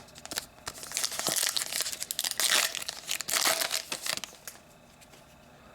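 Wrapper of an SP Authentic hockey card pack being torn open and crinkled. It makes a dense crackling for about three and a half seconds that stops about four seconds in.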